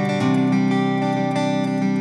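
Background music of acoustic guitar playing sustained chords, with a chord change shortly after the start.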